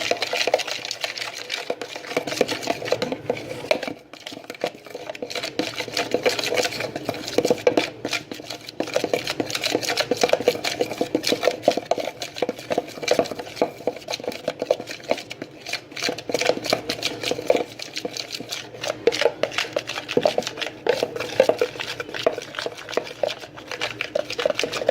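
Mixing spoon stirring and scraping flour and dish soap in a bowl, a fast, continuous run of clicks and scrapes against the bowl with a short pause about four seconds in.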